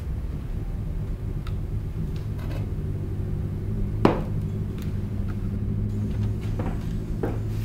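Kitchen wall-cupboard doors being opened and handled: a few scattered clicks and knocks, the sharpest about four seconds in, over a steady low hum.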